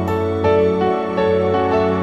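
Soft background music: slow, gently changing sustained chords.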